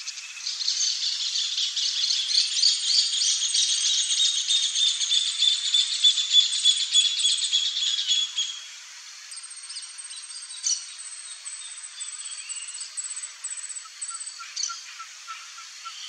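Wild birds and insects calling: a loud, fast-pulsing chorus for about the first eight seconds, then fainter thin, high repeated chirps, with a run of lower repeated pips near the end.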